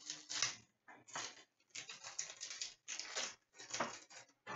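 Hockey trading cards being handled and shuffled: a run of about six short papery rustles and slides, one after another.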